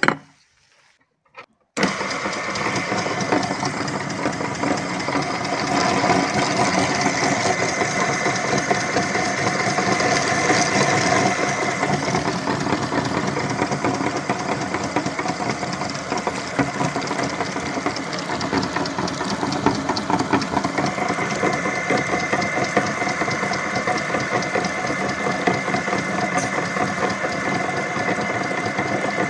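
A motor-driven cast-aluminium meat grinder, belt-driven through a large flywheel, starts abruptly about two seconds in and then runs steadily with a loud mechanical hum and rattle. Just before it starts, a ceramic bowl is set down on the wooden table with a couple of clinks.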